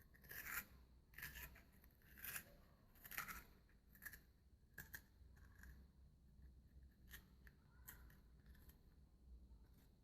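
A spoon scraping into the hard flesh of a raw black radish, hollowing out a well. The faint strokes come about once a second at first, then fewer and softer in the second half.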